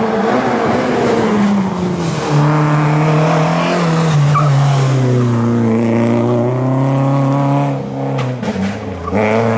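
Rally car engine at high revs as the car approaches and passes at speed, the engine note dropping as it goes by. Near the end the engine briefly drops away, then picks up again.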